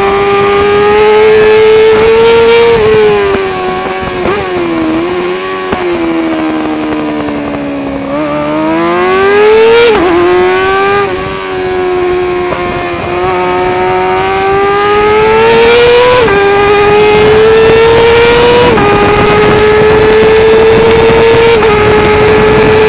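Kawasaki ZXR400 race bike's inline-four through a Pipewerx exhaust can, howling at high revs on track. The pitch climbs and drops sharply at each of about five upshifts, with a slower sag and climb in the middle where the throttle is eased and opened again.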